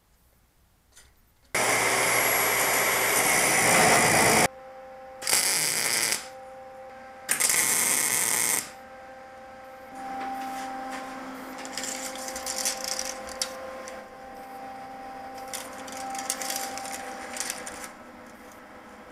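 MIG welder tack-welding steel square tubing: a loud crackling burst of about three seconds, then two shorter bursts. It is followed by quieter crackle over a steady tone.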